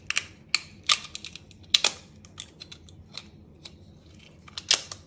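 Cooked soft-shell lobster claw shell cracking and snapping as it is broken apart by hand: a run of sharp crackles, the loudest about a second in, near two seconds, and near the end.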